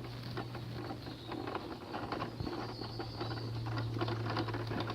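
Wheels rolling over gravel: an irregular patter of small crunches and clicks, over a steady low hum that grows a little louder about halfway through.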